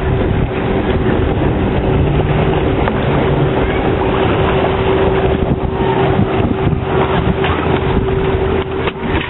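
Wind buffeting the microphone and water rushing along the hull of a small sailboat under way, with a steady hum held throughout.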